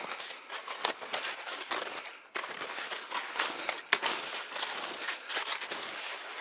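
Snow crunching and crackling underfoot as a person moves through deep forest snow, with clothing rustling and a few sharp snaps, the clearest about a second in and just before four seconds in.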